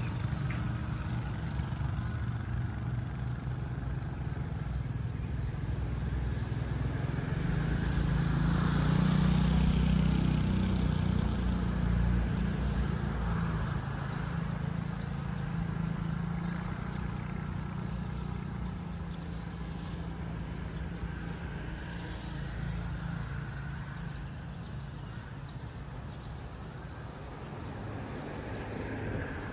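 A road vehicle passing by: a low rumble that builds to its loudest about ten seconds in and then slowly fades away.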